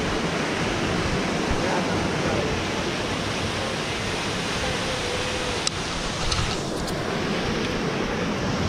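Steady rushing of a waterfall pouring into a pool.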